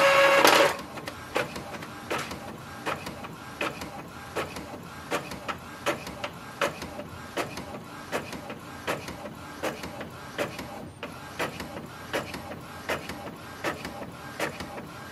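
Epson inkjet all-in-one printer printing a page. It starts with a louder whir lasting under a second, then the printhead carriage shuttles back and forth with a short tick about twice a second as the paper steps forward.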